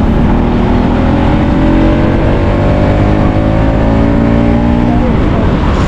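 Motor vehicle engine accelerating, its pitch rising steadily, then dropping about five seconds in, over a heavy low rumble.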